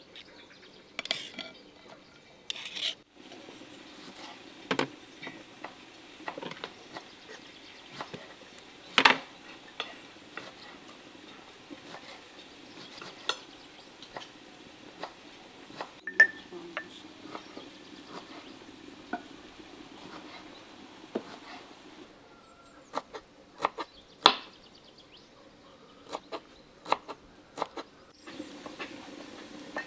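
Scattered clinks, taps and scrapes of a knife on a ceramic plate and of jars and a teapot being handled, sharp and irregular over a faint steady background.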